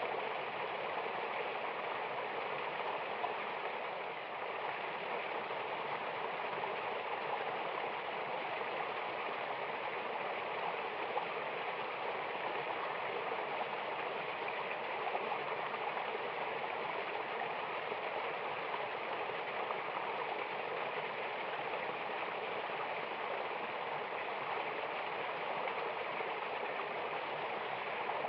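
Water of a mountain waterfall rushing steadily, an even, unbroken hiss without distinct splashes or pauses.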